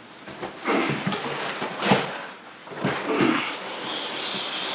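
Cardboard packaging being handled: a few short rustles and scrapes, then a drawn-out high, wavering squeak of packaging rubbing as the boxes are worked apart.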